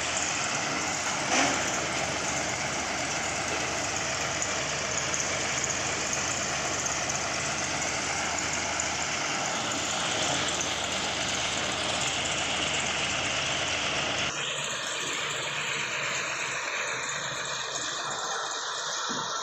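Engine of a sand-piling rig running steadily, with one short knock near the start; the sound changes abruptly about two-thirds of the way through.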